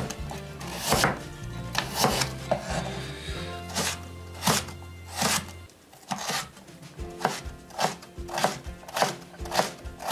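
Large kitchen knife chopping a carrot on a wooden cutting board. Single strokes come spaced out at first, then quicker chopping at two to three strokes a second from about seven seconds in, as the strips are diced into small cubes.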